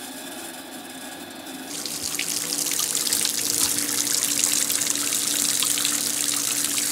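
Water starts running from a hose and faucet into a concrete utility sink about two seconds in and builds to a steady splashing hiss, flushing the lines of a newly installed well pump. A steady low hum from the water system runs underneath.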